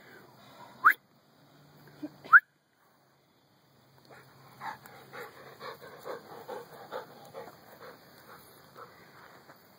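Dog giving two short, high whines that rise in pitch, about one and two and a half seconds in, followed by a run of quieter short sounds, about three a second.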